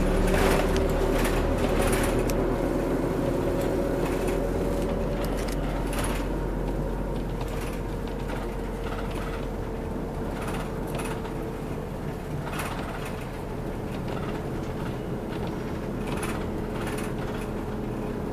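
Interior of a city bus under way: a steady drone of engine and road noise with a held hum, and a few light rattles from the cabin.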